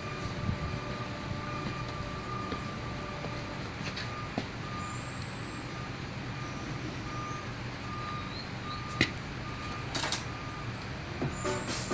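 A short high electronic beep repeating evenly, like a reversing alarm, over a steady low machinery hum, with a few sharp metallic clicks, the loudest about nine seconds in.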